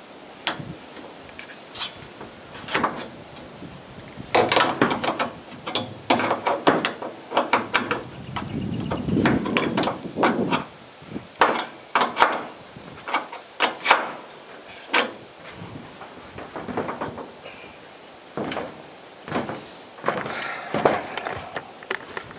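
Irregular knocks, clicks and clatter of solar panel mounting rails and their fixings being handled and fitted, with a denser scraping rattle about halfway through.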